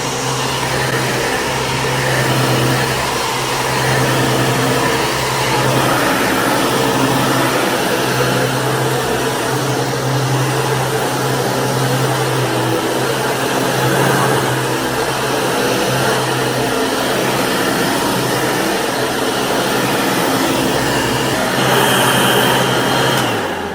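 Restored Hoover Caddy Vac vacuum cleaner running steadily, its motor hum rising and falling slightly in loudness, then switched off near the end.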